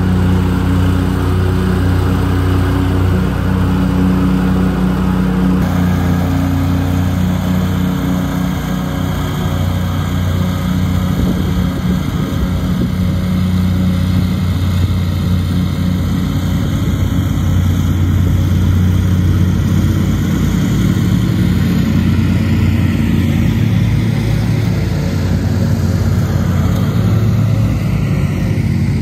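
A tractor engine running steadily under a mowing load, with an abrupt change in its sound about six seconds in.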